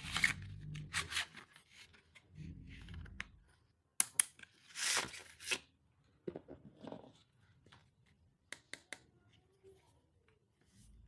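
Stationery packaging being torn open and rustled by hand, in short noisy spells. There are a couple of sharp clicks about four seconds in and a quick run of clicks later on.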